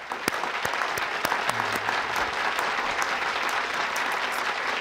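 Studio audience applauding steadily in welcome, a dense patter of many hands clapping.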